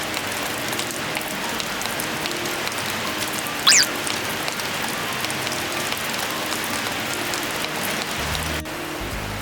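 Heavy rain falling steadily, a dense hiss of pattering drops. About four seconds in there is one short high squeak, the loudest sound, and soft music comes in near the end.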